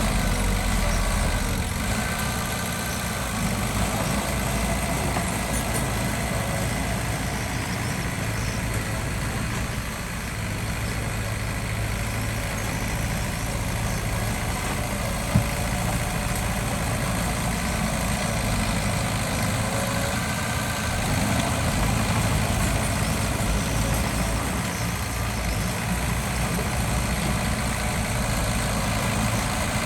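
Diesel engine of heavy earthmoving machinery running steadily, with one sharp knock about halfway through.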